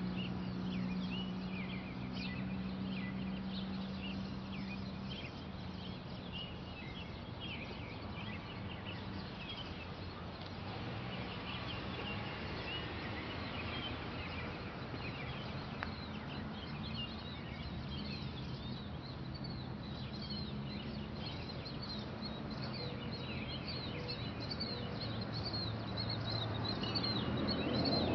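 Small birds chirping over a steady low hum, with a broader noise building near the end.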